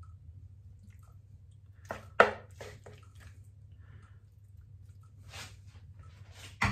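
A spatula scraping and knocking against a frying pan as saucy penne is scooped out and dropped onto a plate. There are a few short clatters, the sharpest about two seconds in and another just before the end, over a low steady hum.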